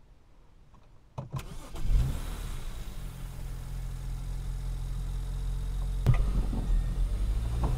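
BMW 335xi's twin-turbo 3.0-litre inline-six, heard from inside the cabin, cranking and catching about two seconds in with a brief flare. It then settles into a steady idle. A click comes just before the start, and another about six seconds in.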